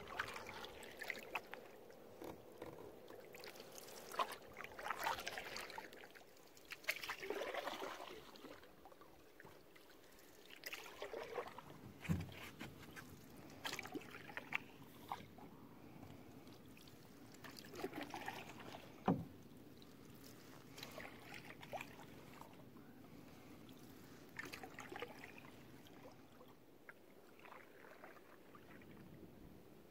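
Wooden canoe paddle strokes in calm lake water: the blade swishing and dripping every second or two, with two sharp knocks in the middle.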